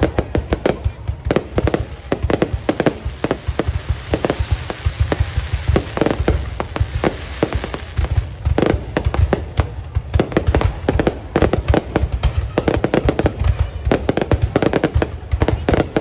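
Fireworks display: a rapid, continuous barrage of bangs and crackles, many shells going off each second.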